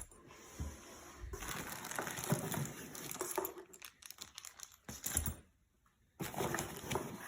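Box packaging being handled and unpacked: rustling and crinkling with small knocks, pausing briefly about two-thirds of the way in.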